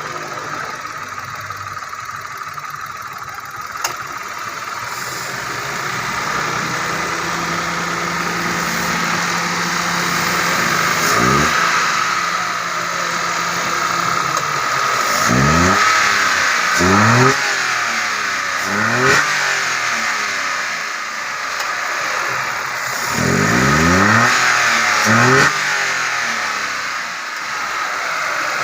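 Mitsubishi Mirage G4's three-cylinder engine running after a top overhaul: steady idle at first, then revved up in repeated quick blips from about ten seconds in.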